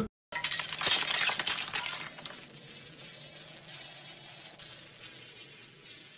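Glass shattering: a sudden burst of tinkling, crackling clicks for about two seconds, thinning into a faint steady crackle that slowly fades.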